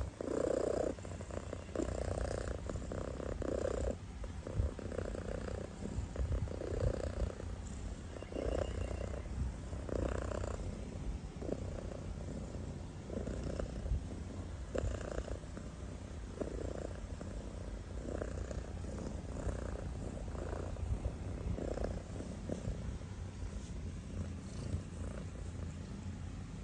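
A sleeping kitten snoring: a soft rasping snore with each breath, about one every second and a half, over a low steady rumble.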